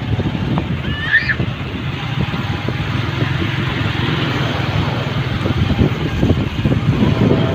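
Wind buffeting the microphone of a moving motorcycle, with the bike's engine running underneath. A short high chirp sounds about a second in.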